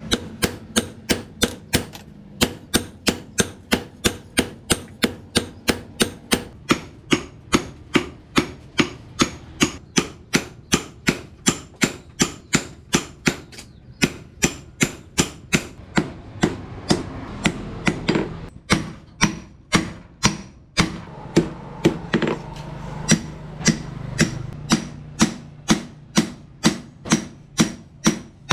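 Hand hammer forging leaf-spring steel on an anvil: steady, evenly paced blows at about three a second, each with a short metallic ring. There are two brief breaks about two-thirds of the way through, and a low hum runs underneath.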